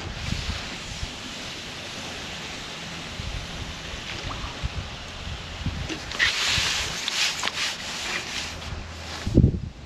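Wind rumbling on the microphone, with a burst of splashing about six seconds in as a hooked fish thrashes at the surface. A few low knocks come near the end.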